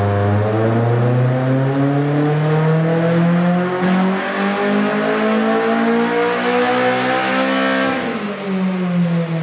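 K24-swapped Honda S2000's four-cylinder engine revving steadily up for about eight seconds, then the throttle shuts and the revs fall away: a pull on a chassis dynamometer.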